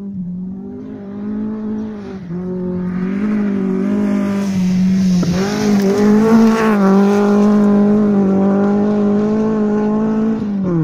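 Rally car engine held at high revs, getting louder as the car approaches and passes close by, the note dipping briefly now and then. From about three seconds in there is a hiss of tyres on loose gravel.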